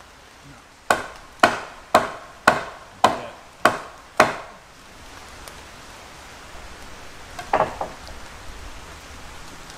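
A tool striking timber: seven sharp wooden knocks at about two a second, then one more knock a few seconds later.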